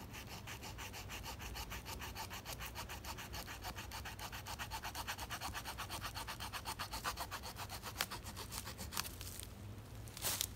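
Small folding saw blade of a Victorinox Fieldmaster Swiss Army knife cutting into a resinous pine stump for fatwood, in quick, even back-and-forth strokes, several a second. The sawing stops near the end, followed by a couple of sharp knocks.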